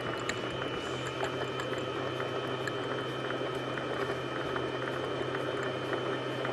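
Two eggs being beaten in a bowl, with light scattered clicks, over a steady low hum.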